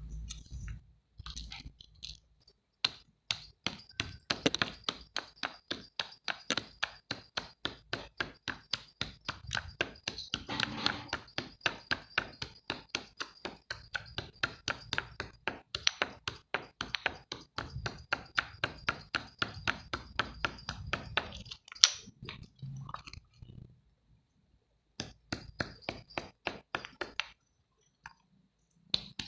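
Quick, even run of sharp clicks from hard, brittle items, about five a second, stopping briefly about twenty-two seconds in and again near the end.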